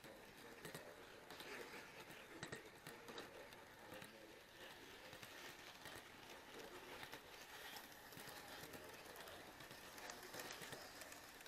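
Faint rolling of an HO-scale model railway camera car on its track, with many small irregular clicks and rattles from the wheels on the rails.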